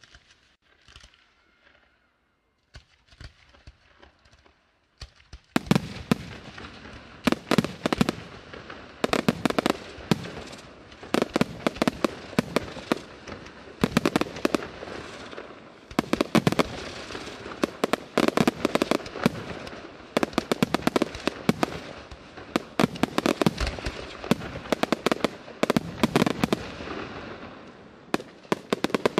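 Aerial fireworks display: a few faint pops at first. From about five seconds in, a rapid, continuous barrage of shells launching and bursting, sharp reports several times a second over a rumbling crackle.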